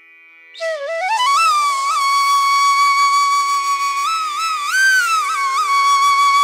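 Background instrumental music: a single melody line on a wind instrument slides up about half a second in, then holds long notes with small ornamental bends over a steady drone.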